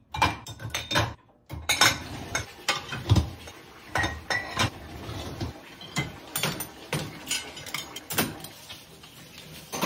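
Dishes and glasses clinking and clattering as they are set into the wire racks of an open dishwasher: a string of separate knocks, with a short pause about a second in.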